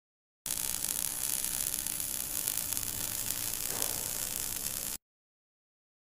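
Steady hiss of recording noise with a faint low hum. It switches on abruptly about half a second in and cuts off just as abruptly about a second before the end, with dead silence on either side.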